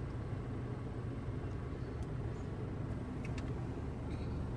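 Steady low rumble heard inside a car, the engine and road noise of the car on the move, with a few faint clicks.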